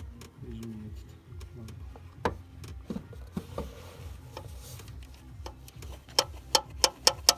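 BMW N55 turbocharged straight-six running with a ticking knock over a steady low rumble, with a run of loud sharp knocks near the end. The owner links the knock to a missing timing-chain guide and tensioner.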